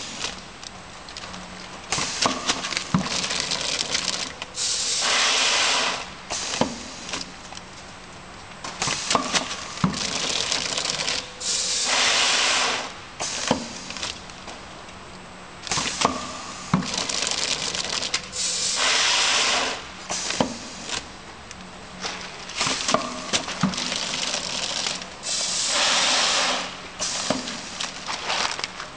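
Vertical granule filling and packing machine running through its bag-making cycle: repeated clicks and knocks from its sealing and cutting mechanism, with a loud hiss of about a second about every seven seconds and weaker hisses in between.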